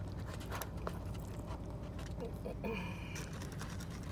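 A low, steady engine hum in the background, with faint rustles and small clicks as a loaded taco is handled and picked up. A short high tone sounds about three seconds in.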